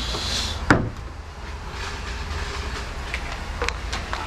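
A steady low hum, with one sharp click or knock a little under a second in and a few light clicks near the end.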